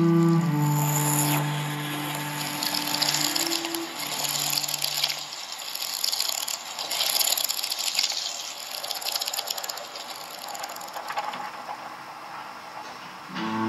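Ambient sound-design soundtrack: a held low chord of sustained tones ends about five seconds in, giving way to a dense crackling, clicking texture, and a new held chord comes in at the very end.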